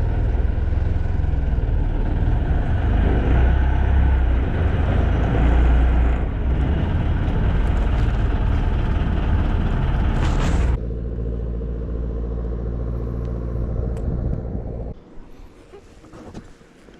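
Small boat's engine running under way, dropping suddenly to a steadier, quieter idle about eleven seconds in, then cutting out about four seconds later.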